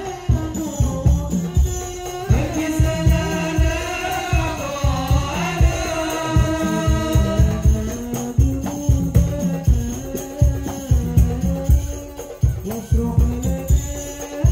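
Hadrah music: a lead voice sings a wavering melody over a steady beat of deep thumps and sharp, jingling slaps. The singing stands out most in the first half; the beat continues throughout.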